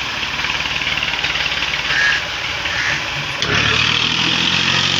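Diesel farm tractor engine running hard while it drags a heavy log onto a trolley. About three and a half seconds in, the engine sound gets louder and settles into a steadier low drone.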